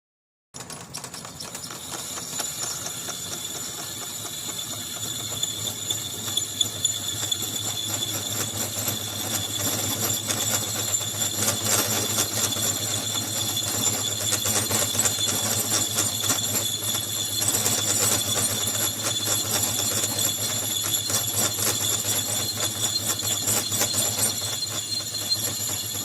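Homemade skid steer running steadily, with a metallic jingling rattle over a low hum; it cuts in abruptly about half a second in.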